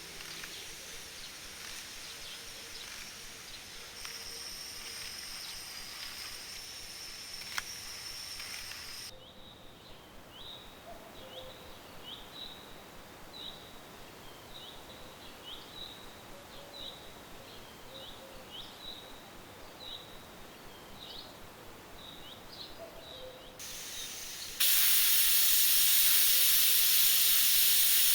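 Outdoor ambience with a small bird giving short high chirps, about one or two a second. Near the end a loud steady hiss cuts in abruptly and holds.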